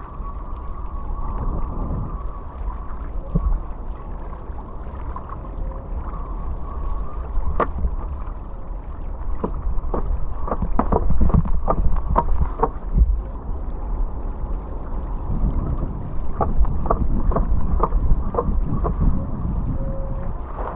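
Hydrofoil board riding downwind over open ocean chop: wind buffeting the microphone and rushing water, with a steady high hum throughout. Clusters of sharp slaps and splashes come twice, around the middle and again near the end.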